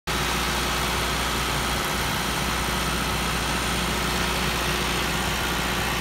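Engines of a trailer-mounted concrete line pump and a concrete mixer truck running steadily while concrete is pumped through the hose.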